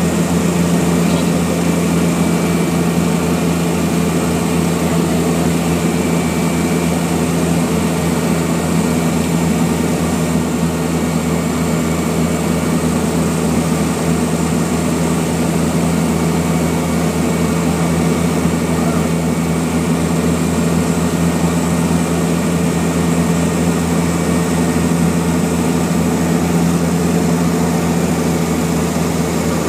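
Propeller aircraft's engines and propellers running at a steady cruise, heard from on board as an even, unchanging drone with a low hum.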